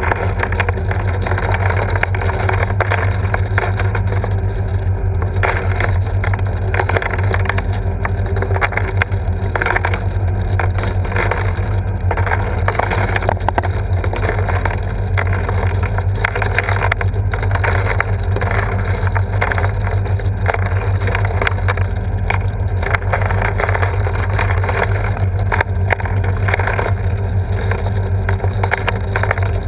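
The sculpture's drive mechanism running steadily: a constant low motor hum with an irregular churning rush over it as the tank's contents are stirred and the felt balls are tossed about.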